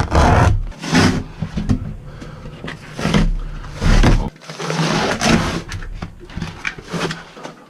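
Irregular scraping, tearing and knocking of old fittings and panels being pried and pulled out during demolition of a boat's head, in a cramped compartment.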